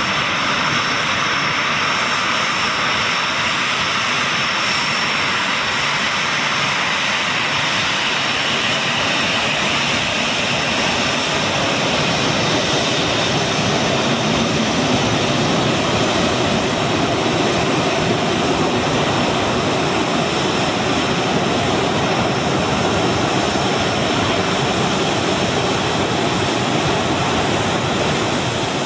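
Boeing 737 Classic's CFM56-3 turbofans running at taxi power: a steady jet rush with a high fan whine. The lower rumble grows about a third of the way in as the airliner turns broadside.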